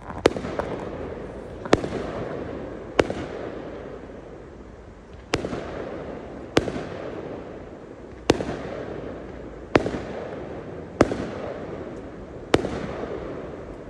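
Aerial firework shells bursting: nine sharp bangs a second or two apart, each trailing off in a long echo.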